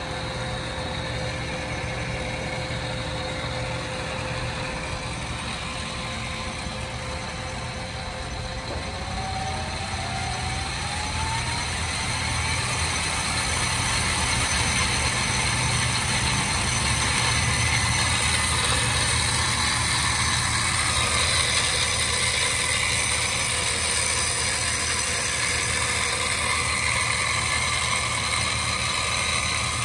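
Feeler FTL-618 tool room lathe running with a steady hum. About nine seconds in, its variable-speed drive is turned up: a whine rises in pitch and the machine grows louder, then runs steadily at the higher speed.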